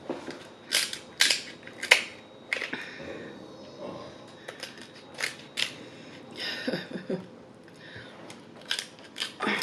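Kitchen scissors snipping through the shell of cooked king crab legs: a series of sharp, crunching snips, irregularly spaced and sometimes in quick pairs.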